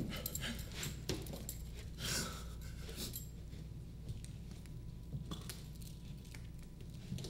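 Metal buckles clinking and restraint straps rustling as a guard fastens them around a seated man's arm: a few sharp clinks in the first three seconds, fewer after, over a low steady hum.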